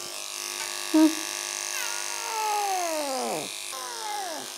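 Old cat's broken-sounding meows in protest: a short call about a second in, then a long call that falls in pitch, and a shorter falling one near the end. A faint steady high whine of electric grooming clippers runs under the first part.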